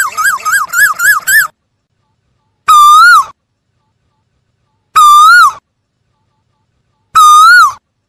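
Asian koel calling: a quick run of about six short, rising whistled notes, then three single loud whistled calls about two seconds apart.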